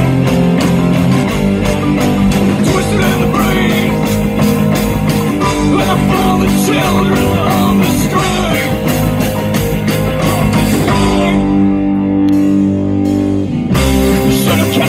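Live rock band playing, with electric and acoustic guitars, upright bass, banjo and drums. The drums drop out about eleven seconds in, leaving the strings ringing, and the full band comes back in near the end.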